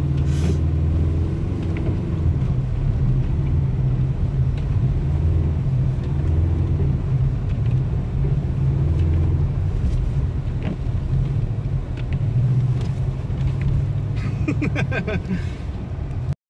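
Car engine running under load with a steady low drone that swells and eases a little, a short rattle near the end, and the sound cutting off suddenly at the end.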